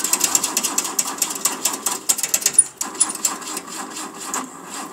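A fast, uneven run of sharp mechanical clicks and scraping, many a second, thinning out near the end.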